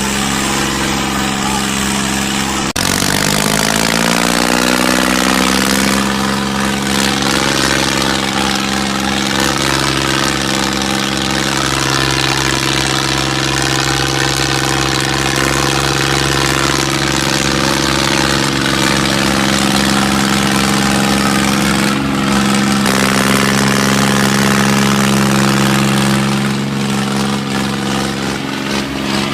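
An engine sound starting up about three seconds in, its pitch climbing for a few seconds and then holding steady as it runs, with a slight change in tone a little past twenty seconds.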